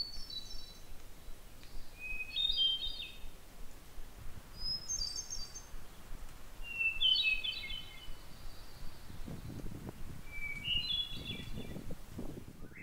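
Wood thrush singing: five song phrases, each about a second long, with pauses of a second or two between them, varying in pitch from phrase to phrase.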